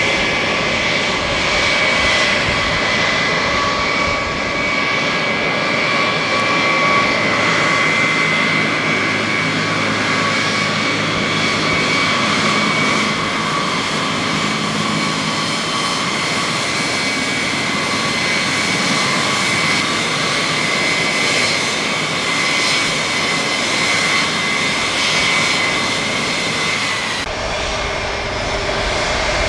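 Pratt & Whitney TF33 (JT3D) turbofans of a Boeing VC-137C (707) jet running steadily as it taxis, a jet rush with a high whine over it. Near the end the sound changes abruptly.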